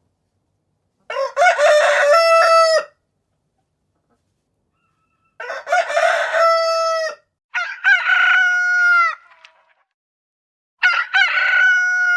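Roosters crowing: four separate cock-a-doodle-doo calls of 1 to 2 seconds each, with clean silence between them, the later two pitched higher than the first two.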